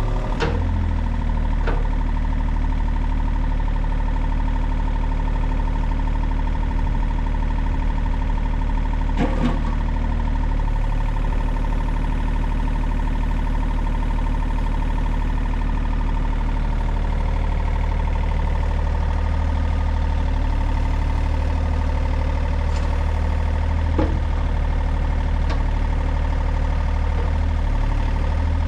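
John Deere excavator's diesel engine running steadily, with a constant high whine over the low engine note. A few short knocks, one right at the start, one near the middle and one late on.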